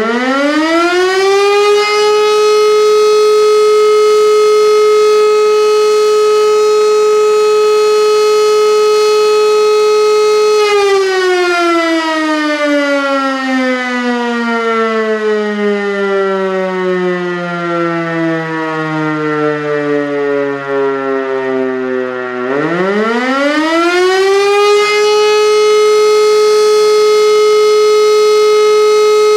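Siemens E57 electromechanical siren sounding the fire alarm signal. It winds up to a steady wail and holds it for about ten seconds. Then it winds down in a long, slow falling tone, and about three-quarters of the way through it rises again to the same steady wail.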